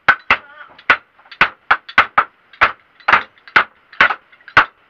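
Repeated sharp blows struck on a bed frame under repair, about two to three a second and unevenly spaced, each with a short ring.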